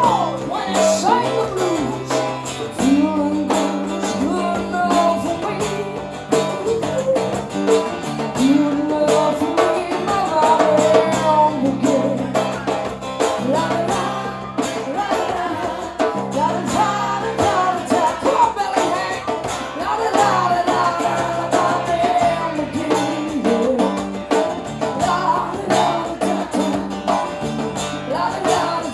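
A woman singing lead with a small live band: acoustic guitar, electric bass and a djembe hand drum keeping a steady beat.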